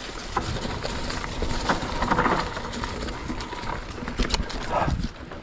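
Mountain bike riding down a loamy dirt singletrack: continuous tyre noise and low rumble, with scattered clicks, rattles and knocks from the bike over bumps.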